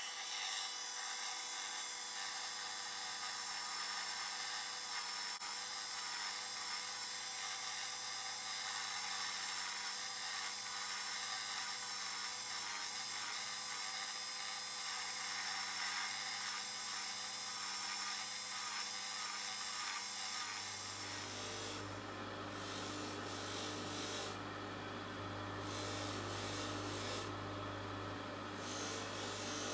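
Handheld rotary tool running with a high whine while its rubber polishing tip is pressed against a watch bracelet link, with irregular scratchy peaks where the tip bites. About twenty seconds in it gives way to a bench polishing motor running with a cloth buffing wheel, a steady low hum.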